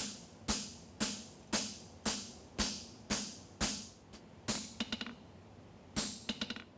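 Hammer striking a handled fullering tool set in the nail crease of a steel horseshoe on the anvil, refullering the shoe. The blows come steadily, about two a second, each with a short metallic ring, broken by a few quick lighter taps near the middle and near the end.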